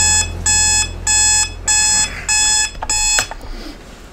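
Digital alarm clock beeping in short high pulses, about two a second. The beeping stops abruptly with a click a little over three seconds in.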